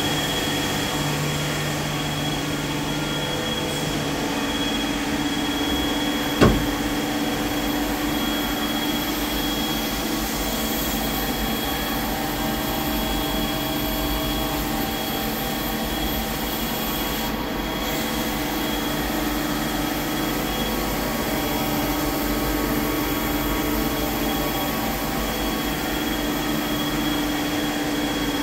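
Star SV-12 CNC Swiss-type lathe running with a steady mechanical hum and a high steady whine. A lower tone drops out about four seconds in, and there is one sharp click a couple of seconds later.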